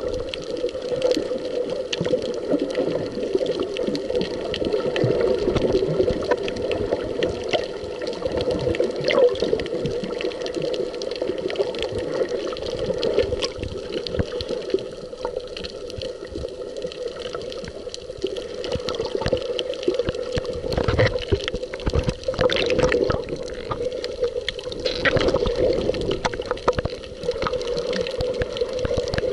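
Underwater sound picked up by a camera held below the surface while snorkelling on a coral reef: a steady muffled water rush with a dense crackle of fine clicks, surging louder a couple of times about two-thirds of the way through.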